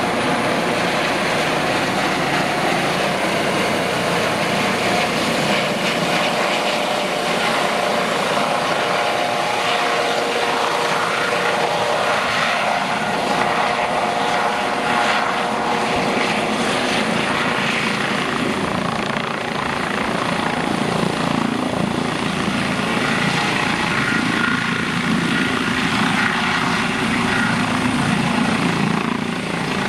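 Eurocopter EC155 helicopter's twin turboshaft engines, main rotor and Fenestron ducted tail rotor running steadily as it hovers low and settles in to land. A steady whine rides over the rotor noise.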